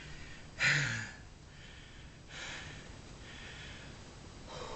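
A man breathing hard from the strain of bending a thick steel bar by hand: a sharp, loud exhale with a slight grunt just over half a second in, a longer softer breath out a couple of seconds later, and another short breath near the end.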